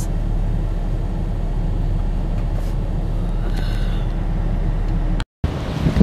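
Steady low rumble of a car heard from inside the cabin while driving, engine and road noise together; it cuts off abruptly about five seconds in.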